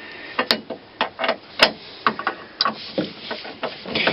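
An irregular series of sharp clicks and light knocks, a few each second, from hands and tools working on a truck's door handle parts.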